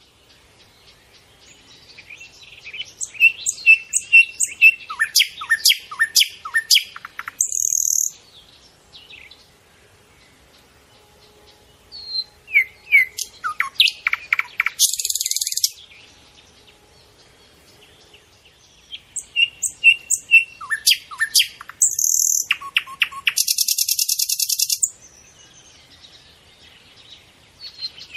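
A small songbird singing in three bouts of quick high chirps and trills, some ending in a harsh buzzy trill, with quiet pauses in between.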